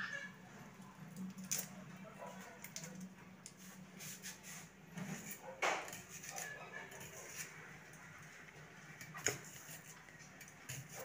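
Quiet room tone: a steady low hum with a few faint, sharp clicks or knocks, the loudest about five and a half seconds in.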